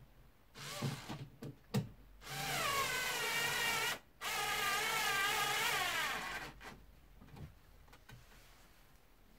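A car's electric window motor runs twice, driving the glass on a repaired window regulator: a whine with a wavering pitch lasting about two seconds, a brief stop, then a second run that sinks in pitch as it ends. A few knocks come before it.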